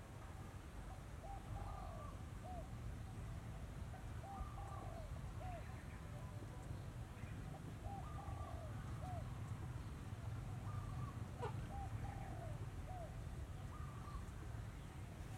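A bird singing the same short phrase of a few quick notes four times, about every three and a half seconds, over a steady low rumble.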